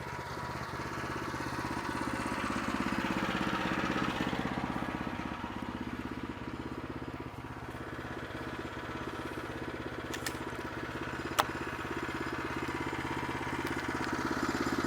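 Gas engine of a Woodland Mills portable band sawmill running steadily under load as the band blade cuts through a jack pine log, its level swelling and easing a little. There is a single sharp click about eleven seconds in.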